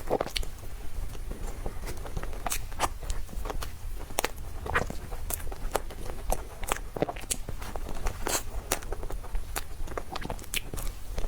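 Close-up eating sounds of a person chewing soft cake or persimmon: irregular mouth clicks and smacks, several each second.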